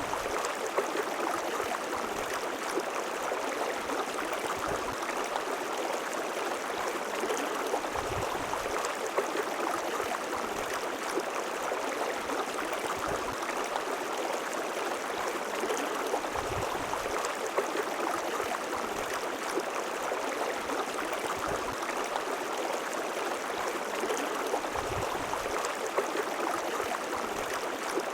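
River water flowing and rushing steadily, with small splashes and gurgles.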